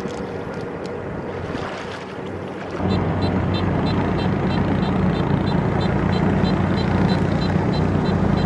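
Kubota DC-70 Plus combine harvester's diesel engine running, with wind noise on the microphone. About a third of the way in it gets much louder and settles into a steady hum with a regular light ticking over it.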